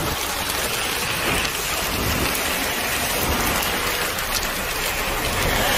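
Heavy rain and hail pouring down steadily, an even dense hiss with a low rumble underneath.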